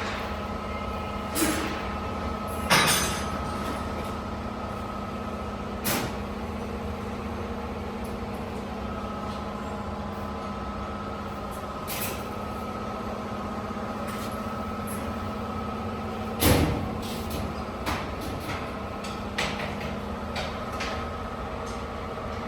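Spot and projection welding machine working: a steady electrical hum, broken by several sharp clunks and short bursts at irregular intervals. The loudest come about three seconds in and again about sixteen seconds in.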